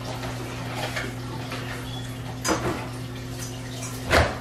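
Kitchenware knocks while banana bread batter is being mixed: two sharp clinks of utensils or dishes against a bowl or counter, the second, near the end, louder and heavier.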